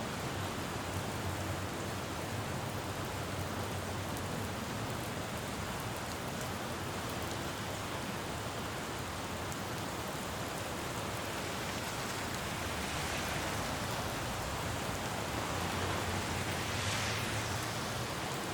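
Steady rain falling on a city road, with traffic passing on the wet street: the tyre hiss swells twice in the last third, loudest near the end, over a low traffic hum.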